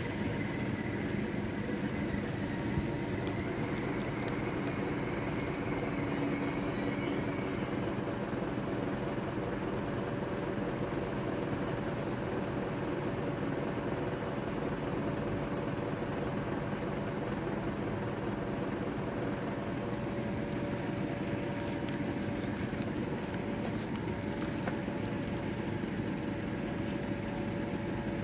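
Steady hum and rumble of a Merseyrail electric train standing at a station platform, with a steady tone held throughout.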